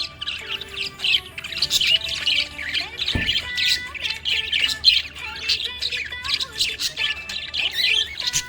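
Budgerigar chattering: a continuous run of rapid, high-pitched chirps, with a brief low thump about three seconds in.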